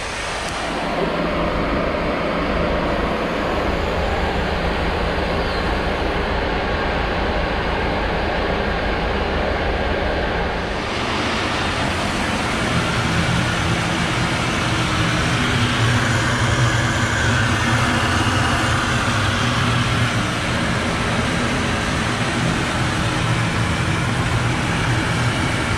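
Diesel tanker truck's engine and delivery pump running steadily while fuel is pumped through the hose into a yacht's tank. About eleven seconds in, the low hum becomes louder and fuller.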